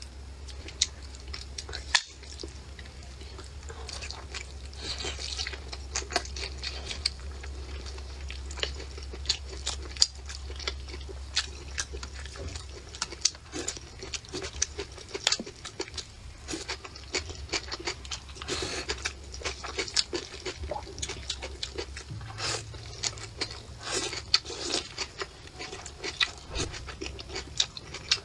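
A person eating close to the microphone: chewing and lip smacking with many short, sharp clicks throughout. A low hum sits underneath for roughly the first twelve seconds.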